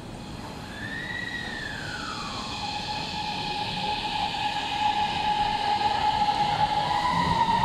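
Beijing Subway BDK03 train's CRRC Times IGBT VVVF traction inverter singing as the train pulls away and accelerates, under a rising rumble of wheels. About a second in, one tone swoops up and then drops away quickly, while a steadier tone and higher notes grow louder.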